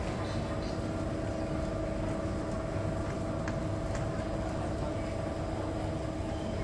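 Busy city pedestrian-street ambience: a steady hum with a constant low drone, a background murmur of voices and a few faint clicks.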